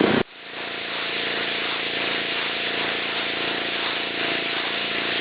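Gas pressure washer with a Honda 5 hp engine running steadily, its water jet hissing on concrete.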